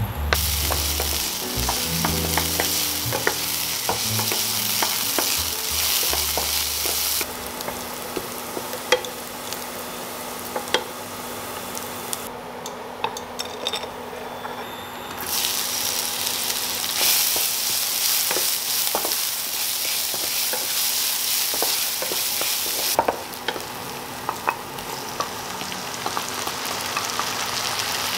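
Food frying in a nonstick pan, first diced bacon and later chopped kimchi: a steady sizzle, with the wooden spatula scraping and tapping against the pan as it stirs. Soft background music with low notes fades out over the first several seconds, and the sizzle dips briefly twice.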